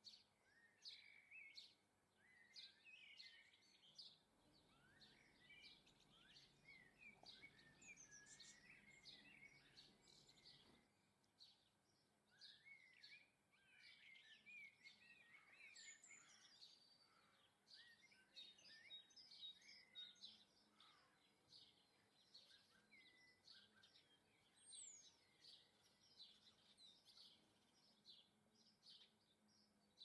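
Garden songbirds calling and singing faintly: a steady run of short, high chirps mixed with twittering, warbling phrases.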